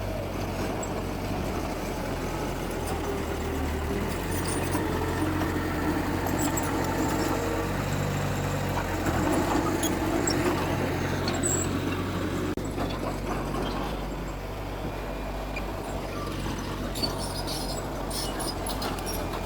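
Heavy diesel engine of earthmoving machinery, a dump truck or bulldozer, running steadily, a little louder around the middle.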